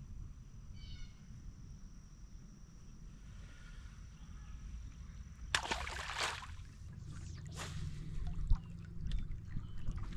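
A small bass thrashing and splashing at the surface beside the boat as it is reeled in: a couple of sharp splashes a little past halfway, another a moment later, then smaller splashes. A low steady hum runs underneath.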